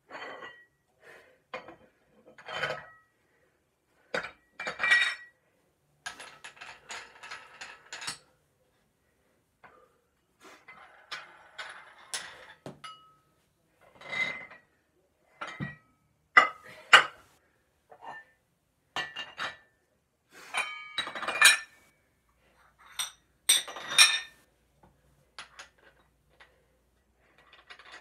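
Hard metal objects clinking and clanking on and off, irregular single strikes and short rattles that ring briefly.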